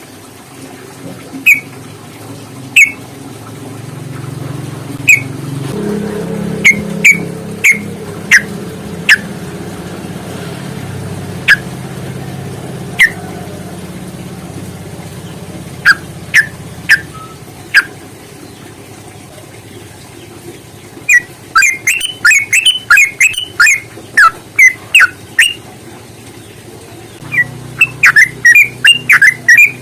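Yellow-vented bulbul calling: sharp single notes spaced a second or more apart, then fast runs of several notes a second from about two-thirds of the way in. A low steady rumble sits under the calls through the middle.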